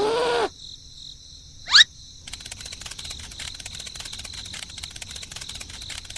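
Steady chirring of crickets and insects with dense, rapid fine pulses. A short voiced exclamation trails off just after the start, and a quick rising whistle-like glide comes a little before two seconds in.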